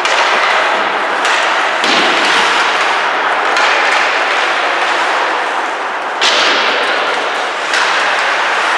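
Ice hockey play in a rink: a steady rushing noise with several sharp knocks of puck, sticks and players against the boards, the loudest a little past six seconds in.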